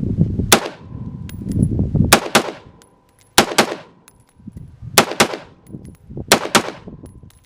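Gunshots fired mostly in quick pairs, about nine sharp cracks in all, each with a short ringing tail.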